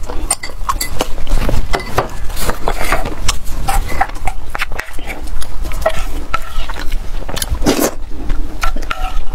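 Close-miked clicking and scraping of a wooden spoon stirring steamed rice into the sauce of a pan of braised pork, with a bowl knocking as the rice is tipped in. Eating sounds near the end.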